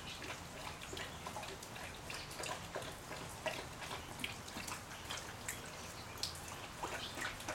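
Alaskan Malamute lapping water from a shallow puddle: a run of quick, irregular wet clicks and small splashes.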